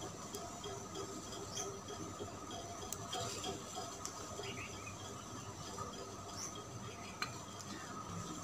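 Faint, scattered clinks and scrapes of a metal spoon against earthenware bowls as powdered raw cane sugar is spooned into a clay mortar.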